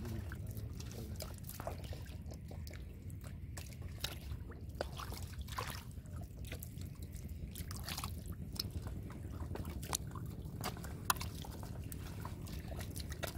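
Hands groping through shallow muddy water: scattered small splashes, drips and wet squelches of mud over a steady low rumble, with one sharper wet snap near the end.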